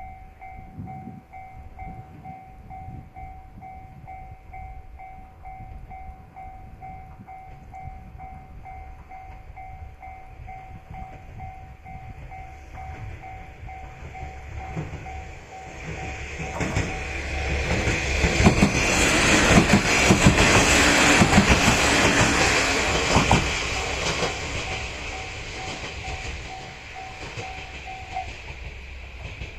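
A Japanese level-crossing alarm dings in a steady repeated pulse while a KiHa 47 diesel railcar passes through the crossing. The train is loudest about two-thirds of the way in, its wheels clacking over the rail joints, then fades. The alarm stops shortly before the end.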